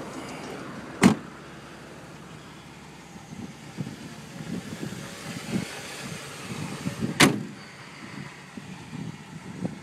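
Car door of a 1987 Mercedes-Benz 260E slammed shut about a second in. A second heavy slam comes about seven seconds in. Irregular soft knocks run between them, over the faint sound of the car's engine idling.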